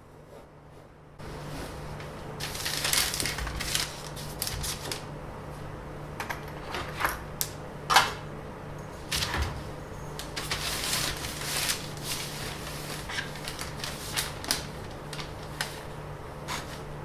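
Irregular clicks, taps and rustling of small things being handled, over a steady low hum that comes in with a rise in hiss about a second in.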